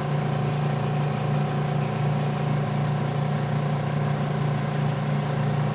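Portable tire inflator's compressor running steadily with an even low buzz, pumping air into a tire freshly filled with sealant.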